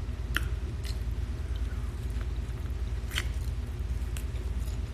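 Chewing lobster meat close to a phone microphone: wet mouth sounds with a few short, sharp smacks or clicks scattered through, over a steady low rumble.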